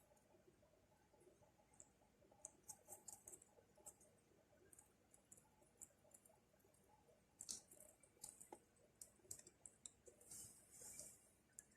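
Faint, irregular small clicks and ticks in scattered clusters.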